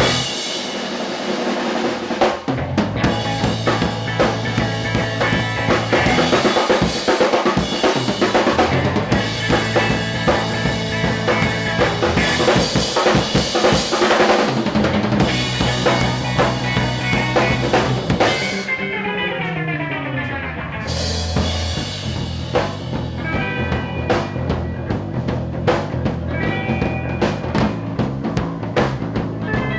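A rock band playing live, with the drum kit prominent: snare, bass drum and rimshots over a steady bass line. About nineteen seconds in, a run of falling pitch sweeps cuts through.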